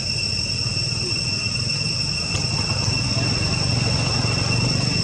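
Steady insect drone, a high whine held at two even pitches throughout, over a constant low rumble.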